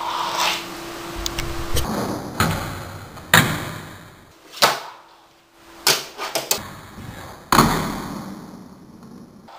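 Fingerboard being popped and landed on a plastic stair-set ramp and tabletop: about eight sharp clacks of the board and its small wheels striking, with rolling and scraping between them.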